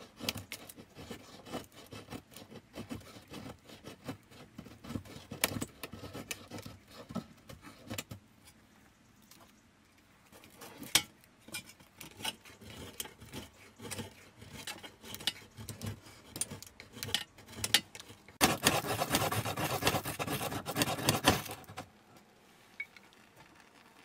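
A knife blade shaving thin curls off a wooden stick: a run of quick scraping strokes and clicks, a short pause, then more strokes. About 18 s in comes a burst of fast, continuous scraping that lasts about three seconds.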